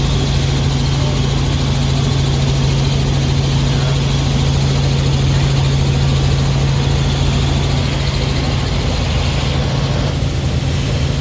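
Helicopter in flight: a steady engine and rotor drone with a strong, constant low hum.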